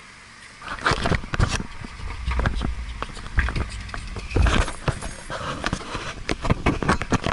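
BMX bike being lifted off a trunk-mounted bike rack and set down on the road: a run of metal clanks, knocks and rattles starting about a second in.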